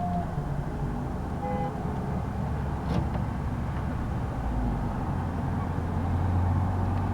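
Steady low rumble of road traffic, swelling as a vehicle passes in the second half.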